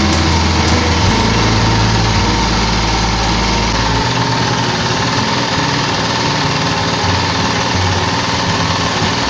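Rebuilt Tecumseh BVS143 single-cylinder four-stroke lawn mower engine running steadily after reassembly.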